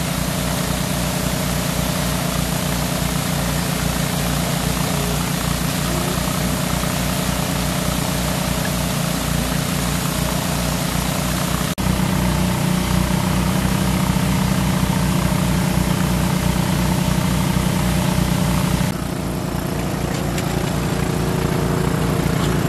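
The engine driving a large water pump runs steadily with an even, rapid firing beat, and water rushes out of the pump's outlet. The sound shifts abruptly about halfway through and again near the end.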